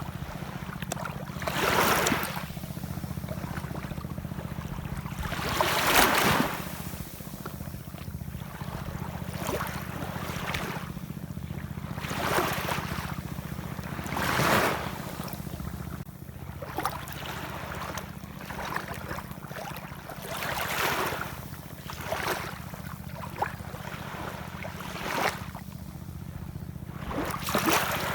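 Ocean waves washing in one after another, each swelling up and fading over a second or so, the biggest about six seconds in, over a steady low rumble.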